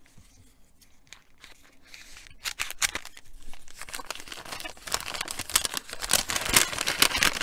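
Folded paper gift bag being unfolded and opened by hand: paper rustling and crinkling that starts about two seconds in and grows louder toward the end.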